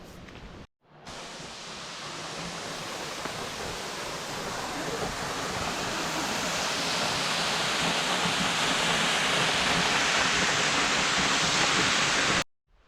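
Waterfall rushing: a steady roar of falling water that grows louder over the first several seconds and then holds steady, cut off abruptly near the end.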